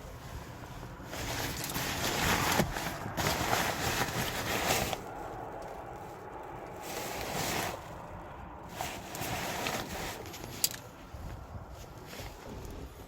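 Rustling and scraping noises that swell and fade, with a single sharp click about eleven seconds in.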